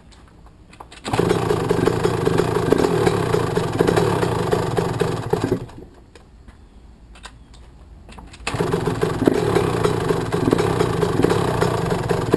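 Freshly rebuilt Yamaha YZ125 two-stroke single-cylinder engine catching about a second in, running for about four and a half seconds, dying, then starting again about three seconds later and running. It won't settle to an idle, which the rider puts down to a lot of oil in it.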